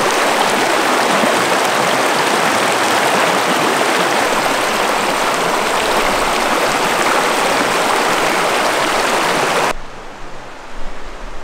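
Rushing water of a stream, loud and steady, cutting off suddenly near the end.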